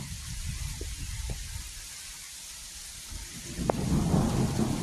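Steady rain with a low rumble of thunder that swells louder about three and a half seconds in; a few sharp ticks of drops stand out.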